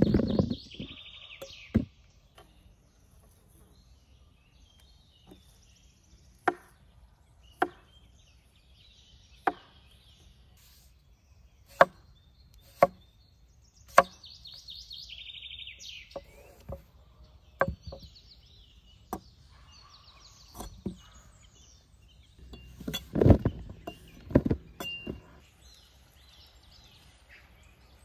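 A large kitchen knife chopping through mushrooms and potatoes onto a thick wooden cutting board: single sharp chops one to two seconds apart, with a louder, closer-spaced run of chops near the end. Birds chirp faintly in between.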